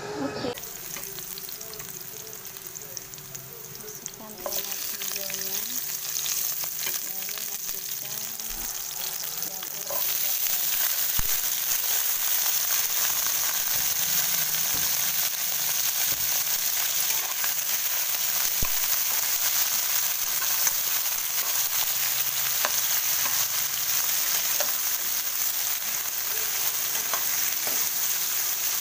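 Sliced carrot, sweet corn and chili stir-frying in hot oil in a pan, sizzling steadily with light taps and scrapes of a metal spatula. The sizzle gets louder about four seconds in and again about ten seconds in.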